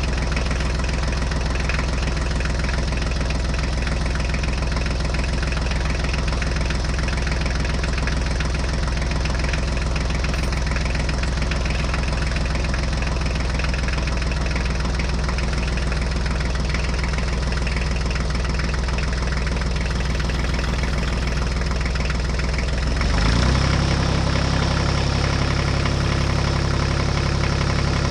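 A mini tractor's engine running steadily with a low, even, pitched hum. About 23 seconds in it jumps to a different pitch and is briefly louder, and it shifts pitch again near the end.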